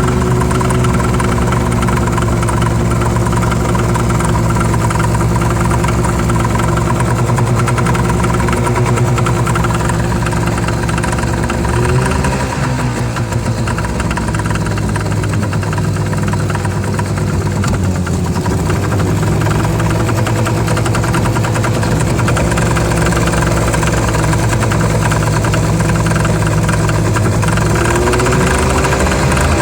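Yamaha 25 hp two-stroke outboard motor running at a steady speed, with a strange noise in its running that the owner cannot place. The engine note dips and recovers briefly about twelve seconds in and again near the end.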